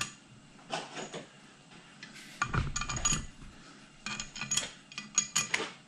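Metal clinking and rattling in several short bursts as tools and head bolts are handled on the cylinder head being bolted down.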